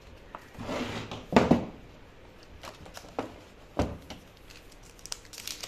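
Cardboard smartphone box being opened by hand: the lid slides off with a short scraping rustle and is set down with two loud knocks about a second and a half in. A few single clicks and a thump follow as the phone is lifted out of its tray.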